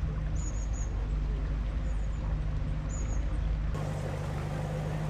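Narrowboat's diesel engine running steadily while cruising, with a small bird chirping high, quick notes twice. The engine sound shifts slightly near the end.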